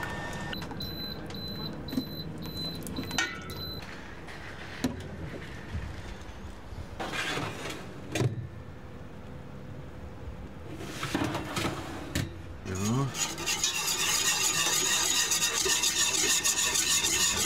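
Wire whisk beating flour into melted butter in a stainless steel pot to make a roux: a fast, even metallic scraping and rattling that starts about two thirds of the way in and becomes the loudest sound.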